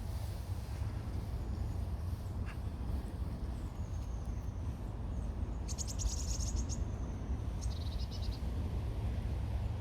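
A small bird gives high, thin whistled notes and two rapid trills in the middle, over a steady low outdoor rumble.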